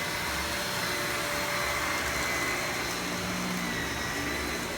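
Vacuum cleaner running steadily while being pushed over the floor: a constant motor hiss with a faint high whine.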